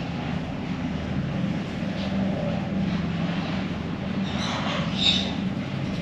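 A steady low mechanical drone with a hum running through it, with a short, brighter high sound about five seconds in.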